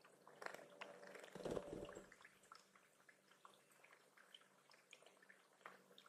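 Faint splashing and dripping of water as small songbirds, a Tufted Titmouse among them, bathe in a shallow pond, with a brief low thump about one and a half seconds in.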